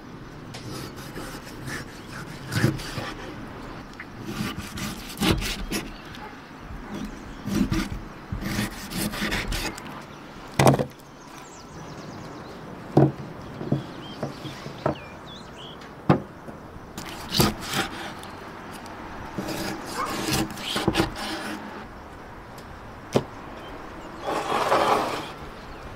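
Irregular knocks, taps and scraping of wooden things being handled, with a louder stretch of scraping near the end.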